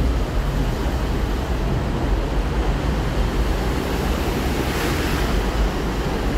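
Wind buffeting the microphone: a steady rumbling hiss with no train passing, the hiss swelling briefly about five seconds in.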